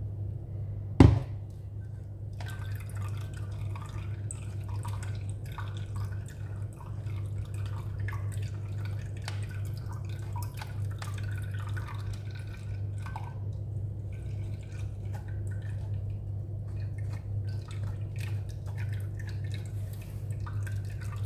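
Wooden spatula scraping and pressing blended juice pulp through a metal mesh sieve, with small clicks and scrapes and juice dripping into a glass measuring jug below. One sharp knock about a second in, over a steady low hum.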